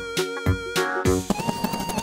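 Background music with a steady drum beat under held melody notes.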